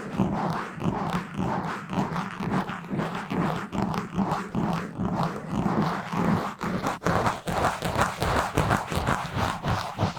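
Fast, rough scratching and rubbing directly on a bare microphone: a continuous run of rasping strokes, several a second, which turn sharper and more distinct about seven seconds in.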